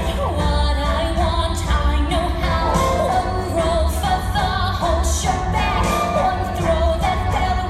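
A song: a singing voice carrying a melody over band accompaniment with a heavy bass.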